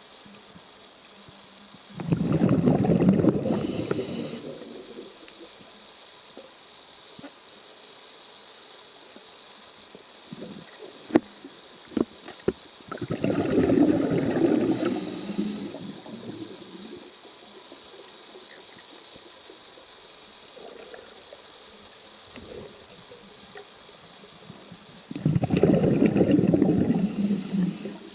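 Scuba diver's regulator heard underwater: three bursts of exhaled bubbles, each a rumbling gurgle of about two to three seconds, roughly eleven seconds apart, with a few faint clicks in between.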